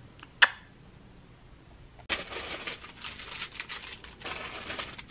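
A single sharp click, then from about two seconds in a clear plastic bag crinkling as it is handled.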